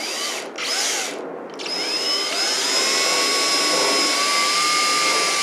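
Power drill driving a screw through nylon webbing into a PVC pipe frame: two short bursts, then a longer run from about a second and a half in, its motor whine rising and then holding steady.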